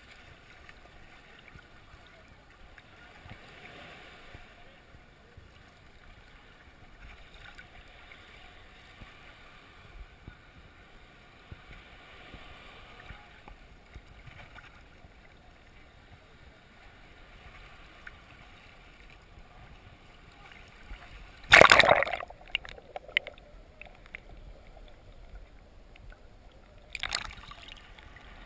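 Sea water lapping quietly against a camera held at the surface, with a loud splash about twenty seconds in that crackles on for a couple of seconds, and a shorter splash near the end.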